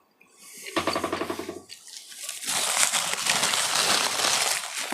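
Close-miked mouth sounds of someone eating. A short, low, throaty vocal sound about a second in, then loud wet chewing and smacking full of rapid clicks through the second half.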